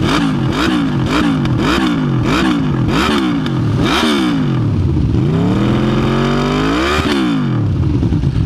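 Aprilia RSV4 Factory's V4 engine, on the stock exhaust with its valve closed, revved in a quick series of short throttle blips, about two a second. About five seconds in it gives one longer rev that climbs for about two seconds, then drops back to idle near the end.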